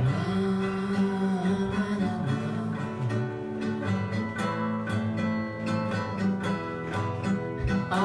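Nylon-string classical guitar strummed in a steady rhythm: an instrumental passage between sung verses.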